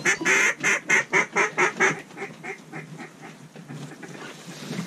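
A fast run of duck quacks, about five a second, evenly spaced, loud for the first two seconds and then tapering off and fading away.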